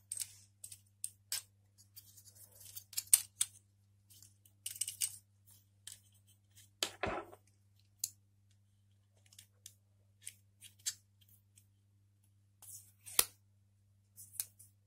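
Irregular plastic clicks, scrapes and light knocks from handling an Intel stock CPU cooler fan while prying the label off its hub with a small screwdriver, with a heavier knock about halfway through and a sharp click near the end. A steady low hum runs underneath.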